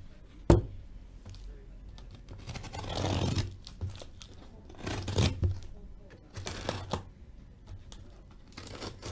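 Sealed cardboard case of hockey cards being opened by hand: a sharp click about half a second in, then several separate bursts of tearing and rustling cardboard and tape.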